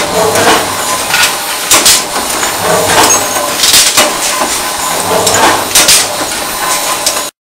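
Steel bars clanking against each other and the metal chute as they are handled at an induction heating furnace: repeated irregular metallic clanks, about one a second, over a steady noisy background with a faint steady tone. The sound cuts off abruptly near the end.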